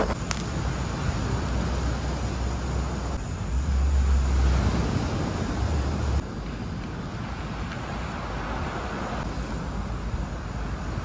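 Handheld butane torch burning with a steady hiss while it heats the polyethylene kayak hull, with wind rumbling on the microphone for the first six seconds before dropping off suddenly. A sharp click right at the start.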